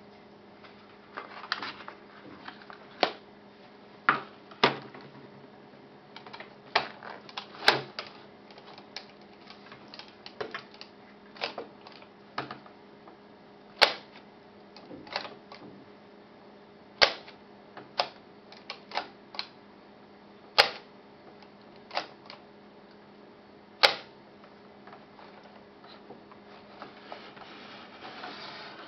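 A Polaroid 320 folding instant camera being handled: a string of sharp clicks and snaps as its bellows front is pulled out, latched and folded back, with louder single clicks every few seconds in the middle. A faint steady hum runs underneath.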